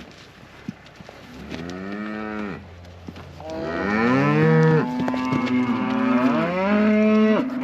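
Cattle mooing: one call about a second and a half in, then several animals calling over one another through the second half. The group is freshly weaned calves with a couple of leader cows.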